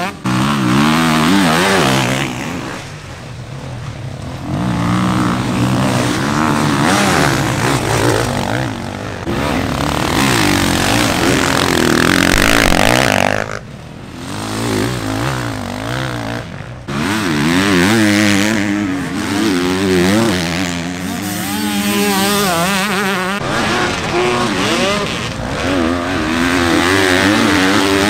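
Motocross dirt bike engines revving hard, their pitch rising and falling with throttle and gear changes. The sound breaks off suddenly a few times as one passage gives way to the next.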